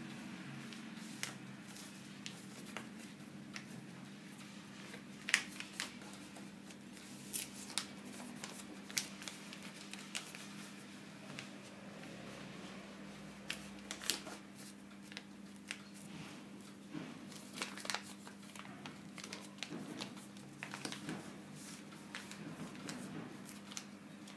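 Sheet of paper being handled and folded by hand: scattered crisp rustles and short taps, over a steady low hum.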